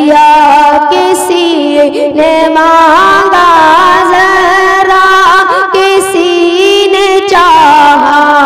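A ten-year-old boy's voice singing an Urdu devotional kalam (naat), with long, wavering held notes and ornamented glides between them.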